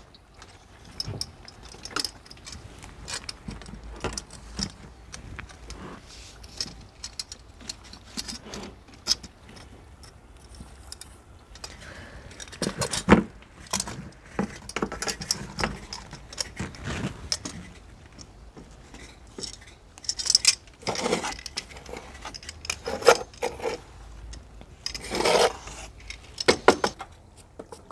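Metal cooking utensils clinking and scraping at an irregular pace: tongs and a slotted spoon knocking against a kadai and around a wood-fired chulha. A few louder clanks come about halfway through and again near the end.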